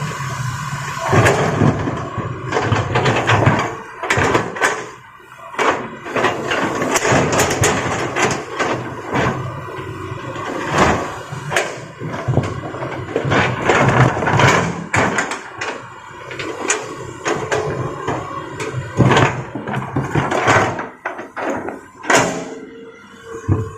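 An excavator's diesel engine running while large rocks are loaded into a dump truck, with irregular bangs and thuds of stone striking the bucket and the steel truck bed.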